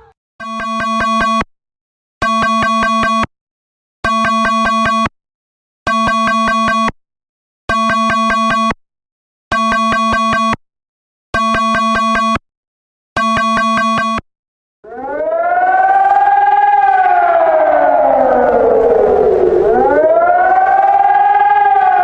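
Emergency alarm sounding eight pulses of a steady low, buzzy tone, each about a second long with equal gaps. After a short pause a civil-defense-style siren starts and wails, its pitch slowly rising and falling.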